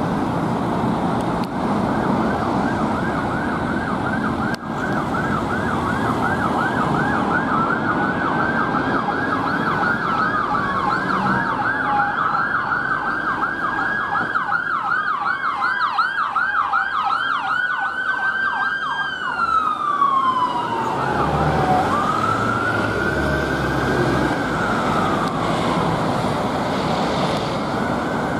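UK ambulance sirens sounding over road traffic, a fast yelp overlapping a slower rising and falling wail. Around twenty seconds in, one siren's pitch drops as the vehicle passes.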